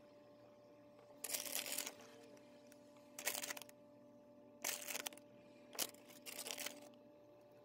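Plastic cheese packet crinkling in five short bursts while shredded mozzarella and parmesan are handled and sprinkled over the lasagna.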